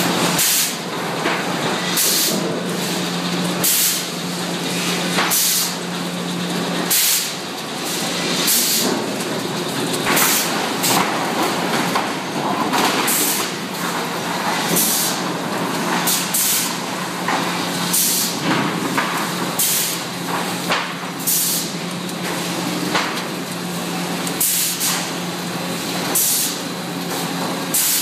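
Hardwood sawmill board-handling line running: a steady machinery hum under frequent short, sharp hisses and clacks every second or two as boards move along the chain conveyors and transfer arms.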